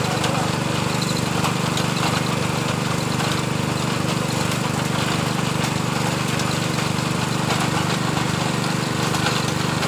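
Engine of a machine-driven water-well drilling rig running steadily, an even hum with no change in speed.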